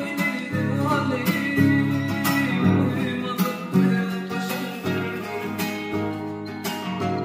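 Music: a song led by plucked and strummed acoustic guitar.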